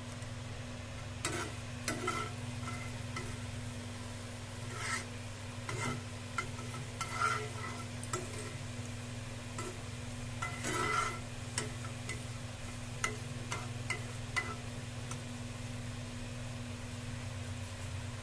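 Metal slotted spatula scraping and tapping against a non-stick frying pan in short, irregular strokes, stirring whole spices frying in oil, over a steady low hum.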